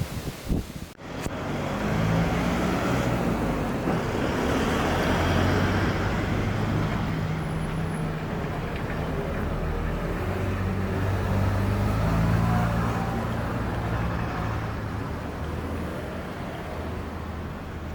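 A motor vehicle's engine running close by, with a steady low hum that swells to a peak and then slowly fades.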